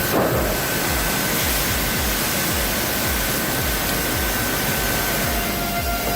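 Large sawmill saw cutting a log: a steady rushing noise with a thin, steady whine, and a second, lower whine coming in near the end.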